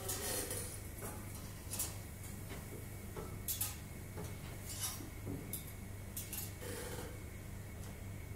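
A scalpel blade cutting along a banana peel: scattered small clicks and short scratches as the blade and gloved fingers work the skin, over a steady low hum.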